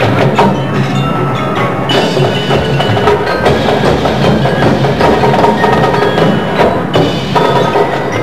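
High school marching band playing, with bell-like mallet percussion and sharp percussion hits standing out, heard through the dulled sound of a multi-generation VHS copy.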